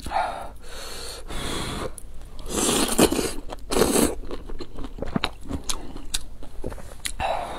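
Close-miked eating: glass noodles in broth slurped into the mouth in two strong bursts about 3 and 4 seconds in, with wet chewing and smacking clicks around them.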